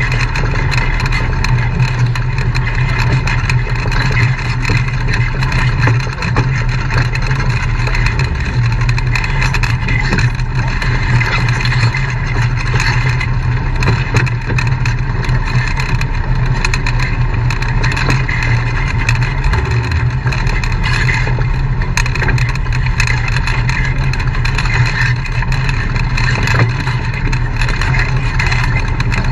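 Engine of an off-road vehicle running steadily at low speed while crawling over a rocky dirt trail, with many small knocks and rattles from the ride over rocks.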